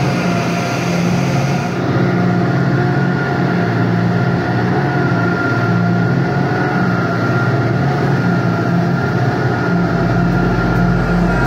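Twin 300 hp outboard motors running steadily with the boat under way: a continuous low engine drone with a steady high whine over it.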